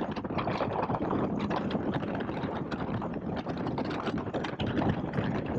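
Steady wind noise on the rider's microphone at cruising speed on a 2021 Indian Scout Bobber, with the bike's V-twin engine running evenly underneath.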